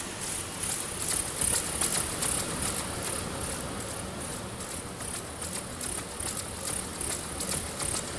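Synthesized electronic space sound effect: a noisy, hissing texture that pulses quickly and evenly, about four to five beats a second, brightest in its high hiss.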